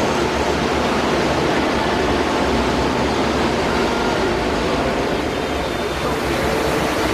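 Combilift four-way sideloading forklift running steadily, a continuous even machine noise with a faint hum in it.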